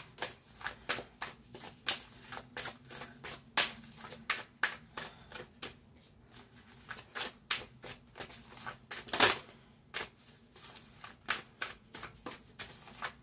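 A deck of cards being shuffled by hand: an uneven run of soft card clicks and slaps, a few a second, with a couple of louder slaps about three and a half and nine seconds in.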